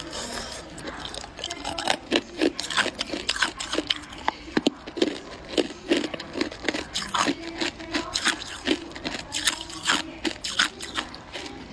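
Clear ice cubes being bitten and chewed: a steady run of sharp, irregular crunches and cracks, several a second.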